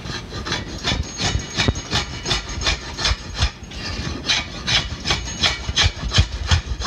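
Drawknife shaving the belly of a hickory board bow in quick repeated strokes, about three a second, each a short scrape of the blade through the wood as the limb is thinned for tillering.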